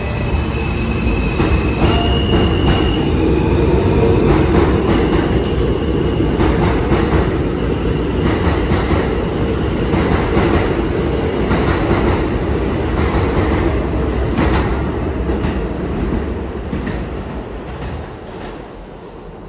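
Stainless-steel New York City subway train pulling out of the station. Its motors whine in rising steps during the first few seconds, then the cars rumble past with repeated clicks over the rail joints. The sound fades away between about 15 and 18 seconds in.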